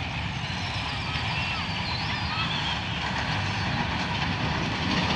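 GMCU-15 diesel-electric locomotive approaching, its engine a steady low rumble that grows slowly louder as it nears.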